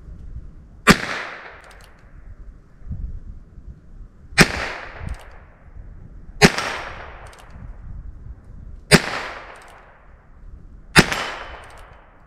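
Five single shots from a Heritage Rough Rider .22 single-action revolver firing .22 Short rounds, spaced about two to three and a half seconds apart. Each is a sharp crack followed by a short fading echo.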